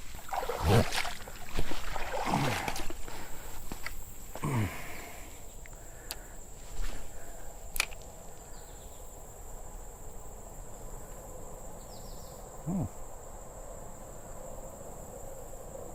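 Steady high-pitched insect chirring, crickets, with a few short sweeping sounds and a couple of sharp clicks over it.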